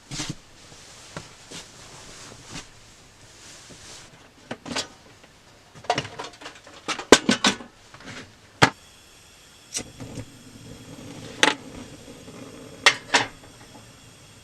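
Scattered knocks, clicks and rustling of things being handled in a small enclosed space, densest in the middle; a steady faint hiss sets in about ten seconds in.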